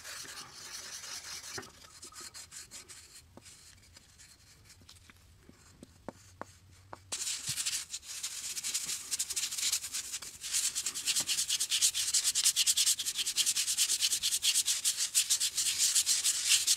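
A white abrasive paste crayon rubbed onto a wooden hone block, then gloved fingers rubbing the paste into the wood in fast back-and-forth strokes, much louder from about seven seconds in.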